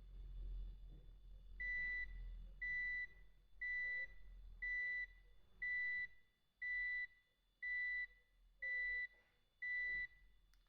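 BlackBerry 8707v beeping from its speaker as an alert or alarm tone plays. It gives nine short, high, steady beeps about once a second, starting a second and a half in.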